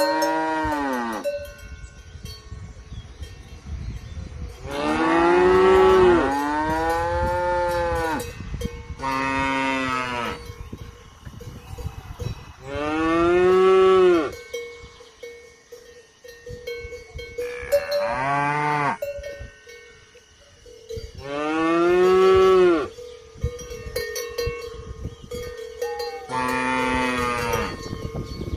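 Cattle mooing repeatedly, a long call every four seconds or so, each one rising and then falling in pitch. Between the calls, cowbells clank and ring faintly.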